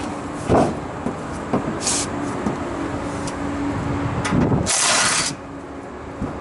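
Work on a rooftop refrigeration compressor unit: a few sharp metal knocks over a steady hum, and a short loud rush of noise about five seconds in.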